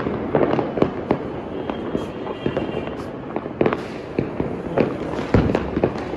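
Many firecrackers and fireworks going off all around, a continuous crackle of bangs and pops at irregular intervals, with a louder, deeper bang about five seconds in.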